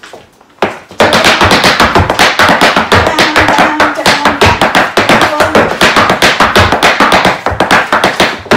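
Irish dance hard shoes striking the floor in fast shuffles, stamps and clicks, a rapid run of sharp taps that starts about a second in and stops just before the end.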